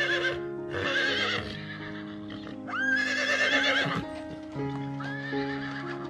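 Horses whinnying: several high, quavering calls in a row, one rising sharply at its start. Soft background music with long held notes runs beneath.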